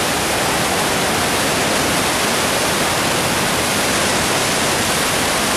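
Panther Creek Falls pouring into its pool: a loud, steady rush of falling water.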